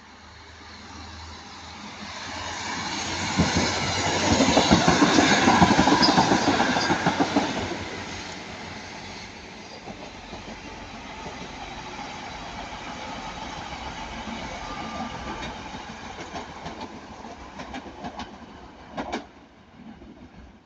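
Class 150 Sprinter diesel multiple unit passing close by, its wheels clattering over the rail joints. It builds to its loudest about four to seven seconds in, then drops away to a quieter rumble, with a single sharp knock near the end.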